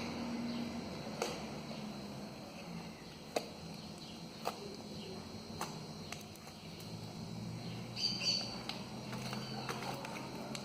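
Homemade white-glue slime being worked by hand, making scattered sharp clicks and pops about a second apart, with a brief higher squeak near the end.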